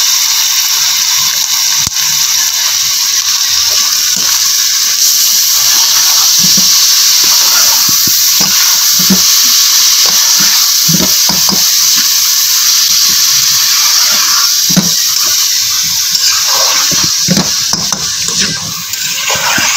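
Keema (minced meat) with chopped tomatoes and green chillies sizzling steadily in a frying pan as it is stirred, with repeated scrapes and taps of a slotted spatula against the pan. The hiss eases slightly near the end.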